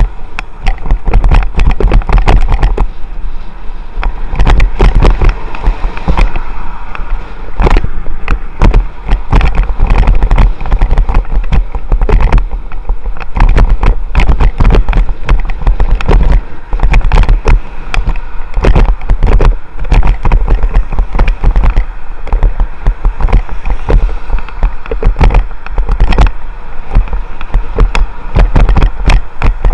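Wind buffeting and crackling on a helmet-mounted action camera's microphone while riding a bicycle, a loud steady rumble, with traffic on the dual carriageway passing alongside.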